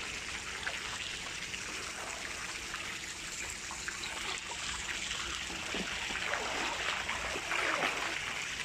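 Steady trickling of water in a swimming pool, with the splashing of a swimmer's strokes growing louder in the second half.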